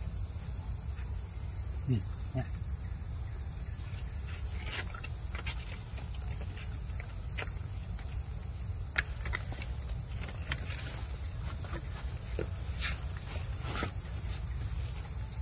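Steady, high-pitched drone of insects, holding two constant pitches throughout, over a low rumble, with a few scattered short clicks.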